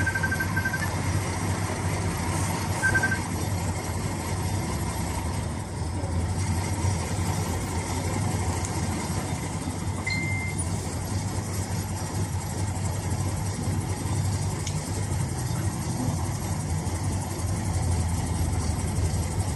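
Steady low hum and rumble inside a tram. A quick run of short high beeps comes at the start and again about three seconds in, and a single brief higher tone about ten seconds in.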